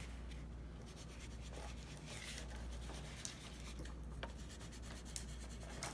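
A pastel stick rubbing and scratching over cardboard as lines are drawn, faint, with a few light clicks.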